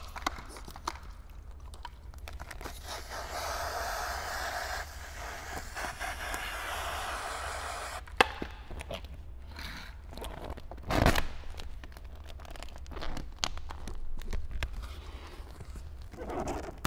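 Hands working paint protection film on a car hood: a few seconds of rustling, then scattered taps and clicks, with a sharp click about eight seconds in and a louder knock a few seconds later, over a low steady hum.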